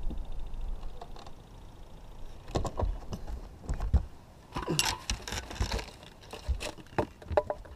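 Irregular clicks and knocks from handling a rod and reel on a boat while a hooked bass is fought, with a denser rattle about five seconds in.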